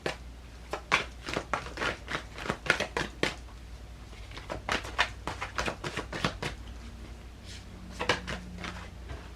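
A deck of cards being shuffled and handled: irregular runs of quick card clicks and slaps in three bursts, over a low steady hum.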